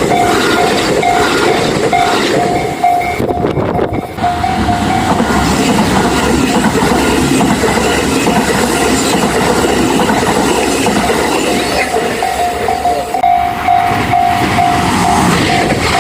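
Japanese level-crossing warning bell ringing in a steady repeating rhythm as a train runs through the crossing. The train's running noise drowns the bell for several seconds in the middle, and the bell is heard clearly again near the end.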